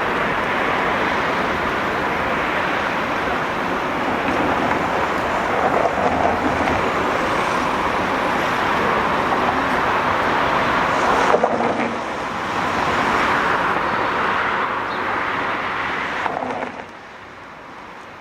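ČKD Tatra T3 tram running along street track with road traffic, a steady loud running noise with a sharp knock about eleven seconds in. The sound drops off abruptly near the end.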